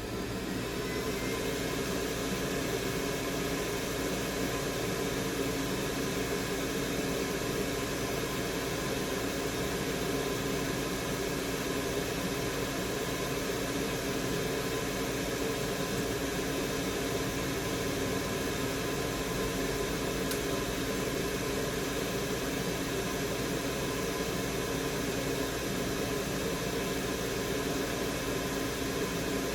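Solder fume extractor fan running with a steady noise and hum.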